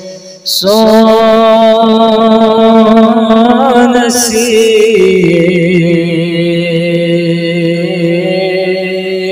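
Background music of a voice singing in a slow, chant-like melody with long held notes. There is a short break about half a second in, and the note changes about five seconds in.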